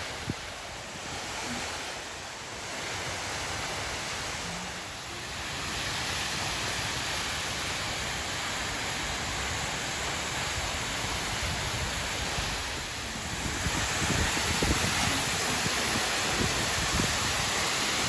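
Steady rush of the Steinsdalsfossen waterfall, growing louder about thirteen seconds in.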